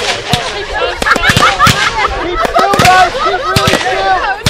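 Fireworks going off in a rapid, uneven string of sharp bangs and cracks, shells bursting low among the trees from a display that has gone wrong. Crowd voices can be heard under the bangs.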